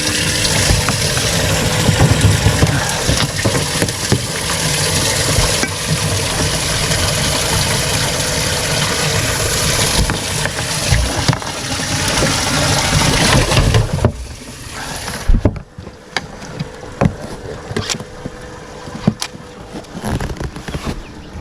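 Bass boat's outboard motor running with rushing wind and water noise, which drops off sharply about fourteen seconds in as the boat comes off plane; light knocks and clicks follow.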